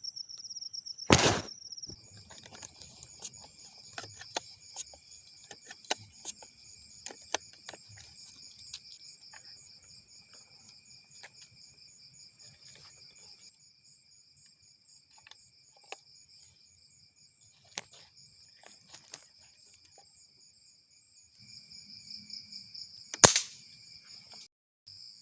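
Crickets and other night insects chirring steadily in a fast pulsing trill. Two sharp cracks stand out, one about a second in and one near the end, with scattered faint ticks and rustles in between.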